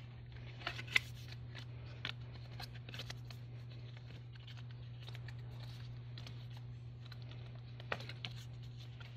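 Yellow paper being handled and folded on a table: light rustling with scattered crisp taps and crinkles as it is creased and pressed flat, the sharpest about a second in and another near the end. A steady low hum runs underneath.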